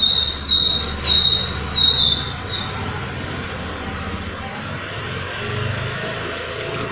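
Rumble of passing road traffic. Over it, a small bird chirps a string of short high notes during the first couple of seconds.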